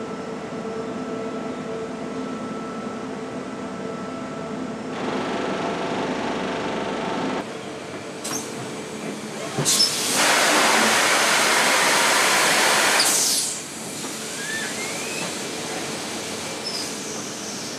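Foundry machinery humming steadily, then a few sharp metallic clicks and a loud hiss of compressed air lasting about three seconds from a Laempe sand core-making machine, before the hum resumes.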